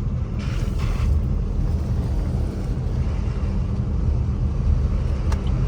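Steady low rumble of a Chevrolet S10 pickup driving, heard from inside the cabin, with a single sharp metallic clack from a wheel about five seconds in. The driver takes the clack to come from the wheel, but thinks it could be the differential or the gearbox.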